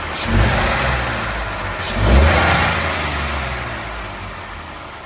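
Ford Ka three-cylinder engine revved twice from idle, each rise dying away back toward idle. Accelerating makes the engine computer shut off the EVAP canister purge solenoid, which stops the solenoid's ticking heard at idle.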